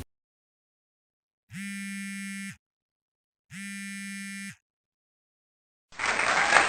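Two steady, buzzy electronic buzzer tones, each about a second long with a second's gap between them. Applause starts near the end.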